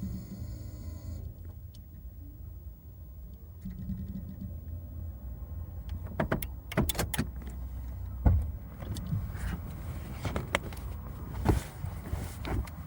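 Low steady rumble of a Toyota Camry, with a brief buzzing tone in the first second. From about six seconds in, a run of sharp clicks and knocks follows.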